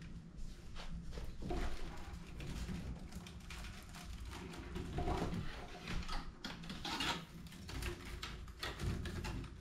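Rattan keba backpack basket being handled: irregular clicks and creaks of cane strands rubbing and knocking as the basket is moved and a rattan cord is pulled through it.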